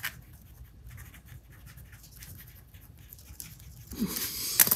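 Graphite pencil writing on paper: a run of faint, short scratching strokes. Near the end there is a louder rustle and a sharp tap.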